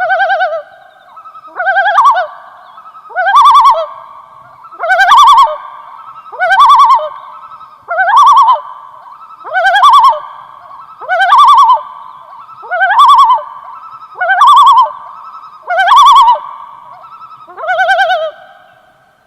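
Common loon yodelling: a run of about eleven matching phrases, each a quick rising swoop into a quavering note, repeated about every one and a half seconds. This is the male loon's territorial call.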